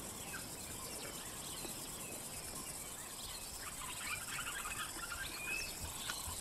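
Faint bush ambience: scattered small bird chirps, busier about four seconds in, over a steady high hiss.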